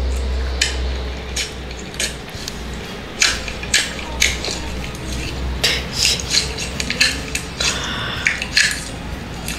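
Clear slime with lipstick mixed in, squeezed, folded and stretched by hand, making irregular sharp clicks and crackles.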